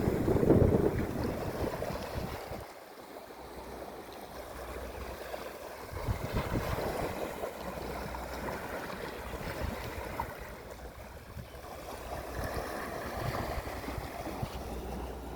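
Sea waves washing ashore, with wind buffeting the microphone. It is loudest at the start, eases to a softer wash, then swells again twice.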